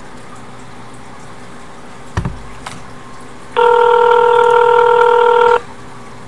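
A click on the phone, then a steady telephone ringback tone for about two seconds: an outgoing call ringing at the other end, waiting to be answered.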